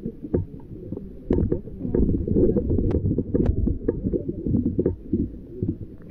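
Muffled low rumbling with scattered sharp taps and knocks: handling and rubbing noise on a hand-held phone's microphone jostled among a crowd.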